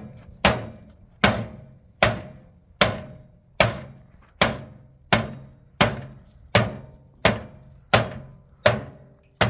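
A hammer beating on a microwave oven in thirteen hard, evenly spaced blows, about one every three-quarters of a second. Each blow rings briefly, as struck metal does.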